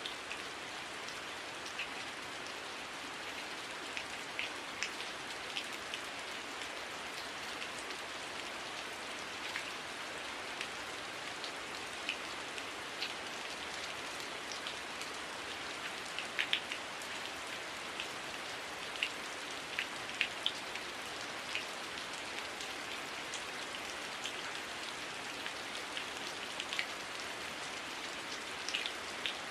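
Heavy rain falling steadily as an even hiss, with many scattered sharp ticks of individual drops striking close by.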